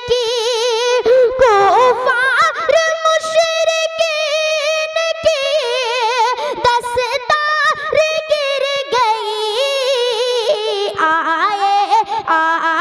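A young boy singing a naat solo into a microphone, unaccompanied: long held high notes that waver quickly, with runs sliding up and down in pitch and no clear words.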